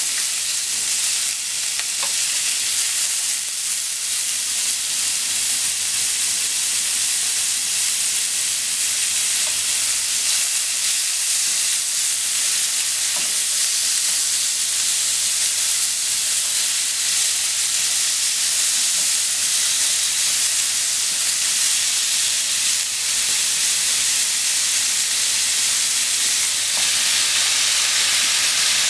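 Thinly sliced pork sizzling in a hot nonstick frying pan as it is stirred with chopsticks: a steady high frying hiss with a few light taps. Near the end, shredded cabbage and bean sprouts go into the pan and the hiss brightens.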